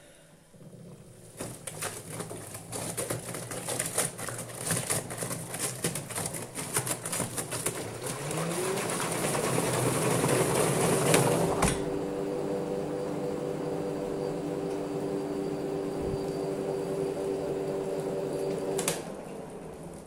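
LG front-loading washing machine starting to spin: the damp towels patter and clatter as the drum turns, then the motor whine rises in pitch as the drum speeds up. After a sharp click about two-thirds in, the whine holds at a steady pitch until it stops shortly before the end.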